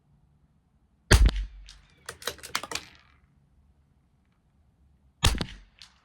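Two shots from a CZ 457 LRP bolt-action .22 LR rifle, about four seconds apart. Each shot is followed by a quick run of sharp metallic clicks as the bolt is worked to eject the case and chamber the next round.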